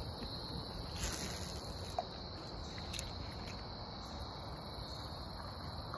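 Insects chirring steadily in a high-pitched chorus, over a low background rumble, with a few faint clicks.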